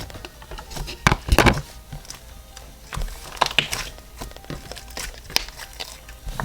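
Floam slime with large and small foam beads being squeezed and stretched by hand, giving off irregular crackling and popping as the beads and trapped air pockets burst. The loudest burst of pops comes a little after a second in.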